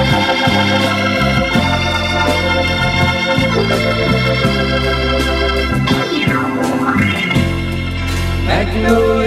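Instrumental break of a soft country-rock song: long held chords over a steady bass line, with a few sliding notes about two-thirds of the way through and near the end. No singing.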